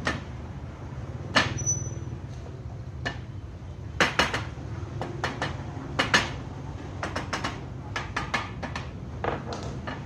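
A small hammer tapping at a wooden window sash, light irregular knocks, often in quick pairs, as the glazing is secured in the frame. A steady low engine hum runs underneath.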